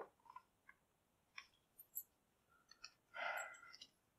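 Faint, scattered metallic clicks of a key being slid into and worked in an old padlock, the loudest at the start, with a brief soft noise about three seconds in.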